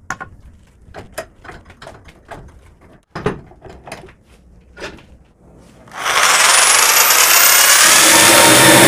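Scattered knocks and clunks as a wooden board is clamped in a bench vise. About six seconds in, a corded electric drill fitted with a small chainsaw attachment starts up: a loud, steady motor and chain whine with a high tone rising in pitch as it spins up.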